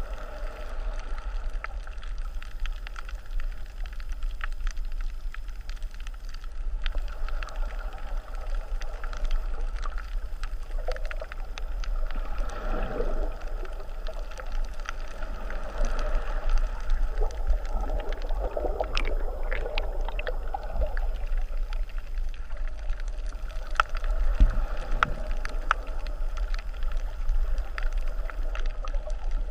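Muffled underwater sound of wave surge churning over a shallow reef, heard through a camera's waterproof housing: a steady low rumble with many small crackles of bursting bubbles. The churning swells about twelve seconds in and again a few seconds later.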